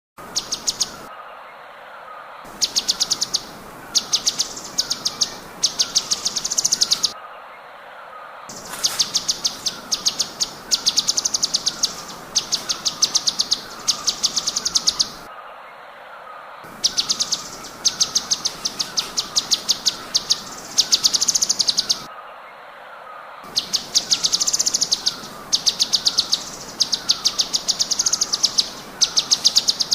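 Cucak cungkok singing its rapid-fire 'tembakan': bursts of very fast, sharp high notes, each burst about a second long, repeated with short gaps. A fainter run of short falling notes sounds lower beneath it throughout.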